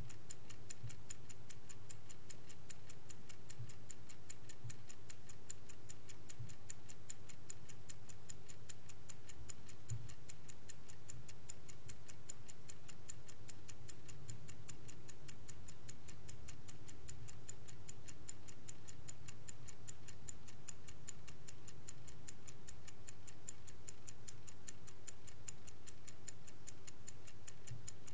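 Vintage Swiss-made Angelus mechanical clock ticking steadily in a fast, even rhythm.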